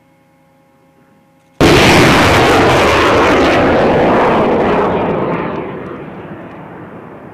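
M270 Multiple Launch Rocket System firing a rocket: a sudden loud blast about a second and a half in, then the rocket motor's rushing noise holding for about three seconds and fading away.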